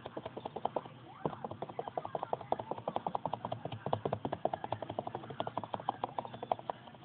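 A damp makeup wedge sponge dabbed rapidly up and down on a stretched canvas, making a run of quick, even soft taps, several a second, with a short pause about a second in.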